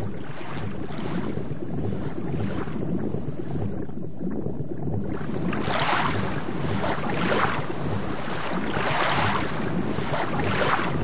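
Rushing water noise with a steady low rumble beneath, swelling and fading in surges that grow stronger about halfway through.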